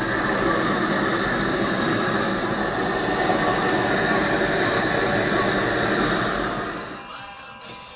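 Hose-fed gas blowtorch burning with a steady rushing noise as its flame is played over a freshly thrown clay bowl; it cuts off about seven seconds in.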